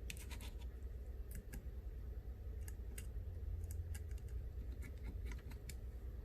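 Scattered light clicks and taps from small phone parts and repair tools being handled, in a few quick clusters, over a steady low hum.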